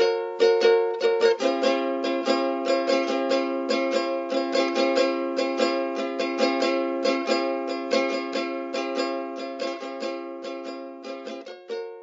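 Background music on plucked strings: quick, even picked notes over held chords, gradually getting quieter toward the end.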